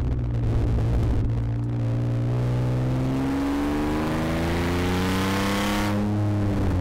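Rally car engine under hard acceleration, its note climbing steadily in pitch for several seconds, then backing off sharply near the end.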